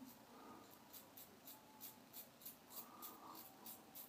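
Merkur 34C double-edge safety razor scraping through lathered stubble on the chin in short, quick strokes, about three a second, faint and crisp.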